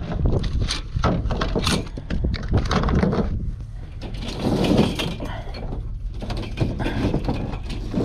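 Repeated knocks and clatters of gear being handled on a pickup truck's hard plastic bed liner, over a low rumble of wind on the microphone.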